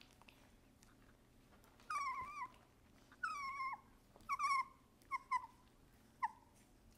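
Young doodle puppy, about four weeks old, whining in a string of high squeaky cries that begins about two seconds in: two longer wavering whines, then shorter ones in quick pairs and a last single squeak.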